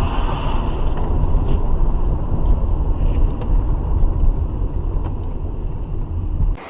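Car driving, a steady low rumble of engine and road noise that cuts off abruptly near the end.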